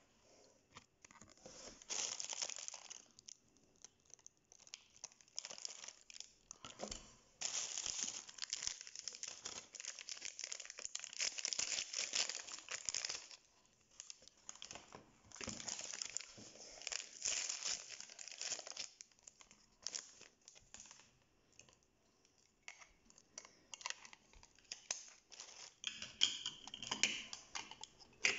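Crinkling and tearing of the wrapper packets from an L.O.L. Surprise doll ball as they are handled and torn open, in irregular bursts a few seconds long with short quieter gaps.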